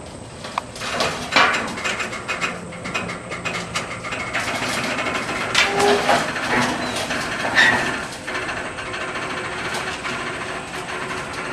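1955 Chevrolet 6100 tow truck rolling down off a steel flatbed trailer: a busy run of clanks, knocks and rattles from the truck and the trailer deck, with a few short squeaks near the middle.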